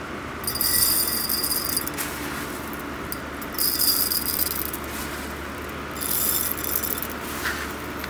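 Roasted coffee beans rattling and clattering against a glass mason jar as the jar is scooped through them, in three bursts, over the steady whir of a box fan running on high.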